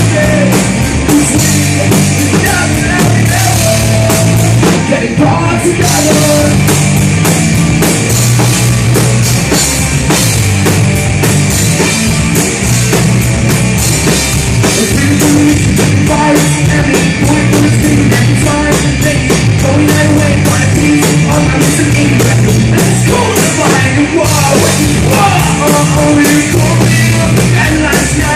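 Rock band playing live at full volume during a sound check: drum kit, electric guitars and bass with a singer's voice, loud and continuous.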